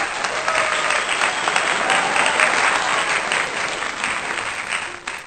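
Crowd applause sound effect, a dense clapping wash that cuts off abruptly near the end.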